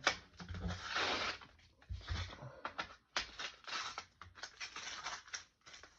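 Foil wrapper of a trading-card booster pack crinkling and crackling as it is squeezed and torn at, with a longer tearing rustle about a second in.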